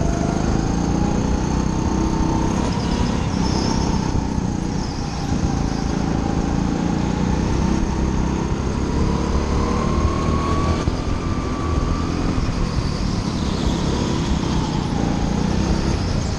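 Racing go-kart running at speed on an indoor track: a steady motor drone that rises and falls in pitch as the driver accelerates and lifts through the corners.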